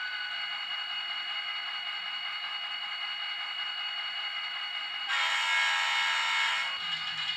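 HO-scale GP40-2 model diesel locomotive running with a steady high-pitched whine. About five seconds in it sounds a single horn blast of about a second and a half from its onboard sound system.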